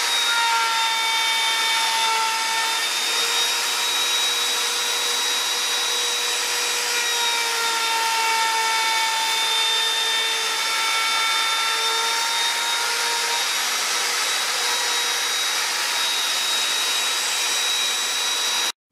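Hand-held plunge router running at full speed while it surface-planes a wooden board, a steady high whine with cutting noise, its pitch sagging slightly now and then as the bit bites. It cuts off abruptly near the end.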